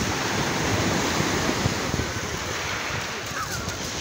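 Sea surf washing onto the shore in a steady rush, with wind buffeting the microphone.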